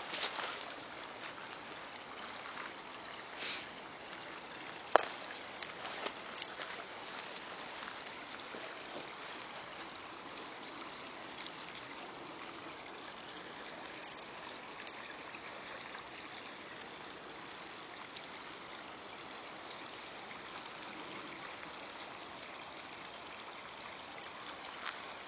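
Steady rushing hiss of running water. A few sharp snaps and brief rustles of twigs and brush come in the first six seconds, the loudest about five seconds in.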